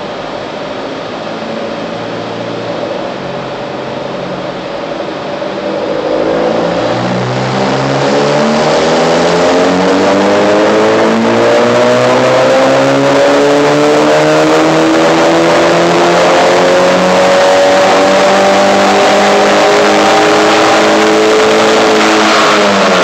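Tuned Mk6 VW Golf GTI's turbocharged 2.0-litre four-cylinder, breathing through a Neuspeed P-Flo intake and Billy Boat catted downpipe, making a dyno pull on the rollers. It runs steadily in gear at first. About six seconds in, the pitch starts climbing slowly and the sound grows louder for some fifteen seconds. Near the end the throttle is lifted and the pitch falls away quickly.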